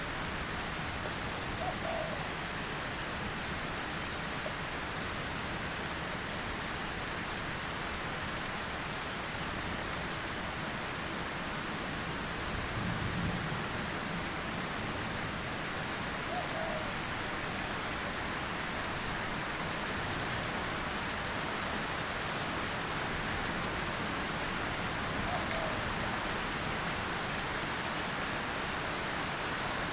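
Drizzle falling steadily, an even hiss with fine drop ticks, and a brief low rumble about thirteen seconds in.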